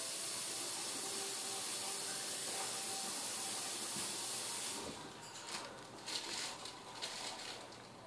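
A steady hiss that stops suddenly about five seconds in, leaving a few faint light taps and clicks.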